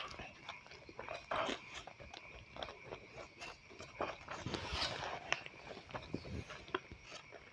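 A person chewing a mouthful of fried rice and chicken nuggets, with irregular small clicks and smacks of eating.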